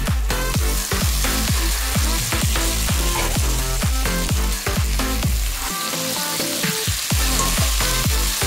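Sizzling in a pan of onions, scallion and thyme frying in oil as sliced carrots, pumpkin and other vegetables are tipped in and stirred with a spatula. Electronic dance music with a steady kick beat plays over it, its low beat dropping out briefly about six seconds in.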